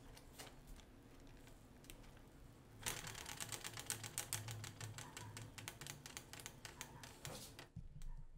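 Homemade model steam engine, a plastic syringe piston cranking a CD flywheel, running with fast, even mechanical clicking. It starts about three seconds in and cuts off abruptly near the end.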